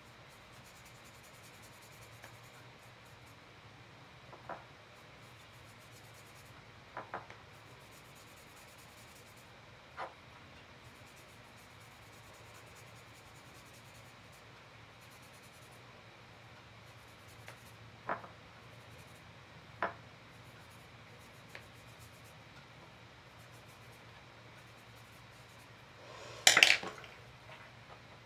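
Quiet room with a few small, scattered clicks of a paintbrush being handled. Near the end comes a brief, louder clatter as the brush scrapes and taps in a small ceramic dish of pink pastel powder.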